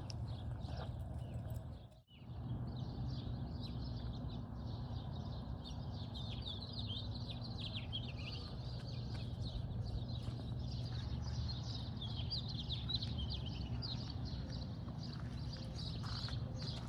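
Several small birds chirping in a busy chorus of quick, high chirps, thickest in the second half, over a steady low rumble. The sound drops out briefly about two seconds in.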